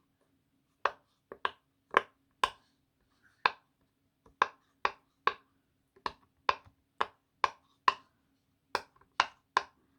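Silicone pop-it fidget toy, its bubbles pushed through one after another on its noisier side: about twenty sharp pops at an uneven pace of roughly two a second.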